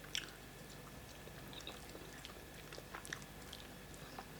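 Faint chewing and scattered small mouth clicks of people eating fufu and soup, over a faint steady hum.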